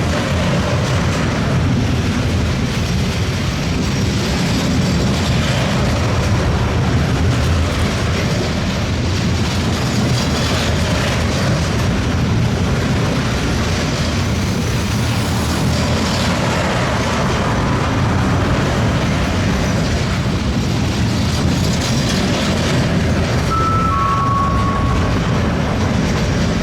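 Intermodal (combined-transport) freight train rolling out of the station: a steady rumble of wagons, with wheels clacking over the rail joints. Near the end there are two brief wheel squeals.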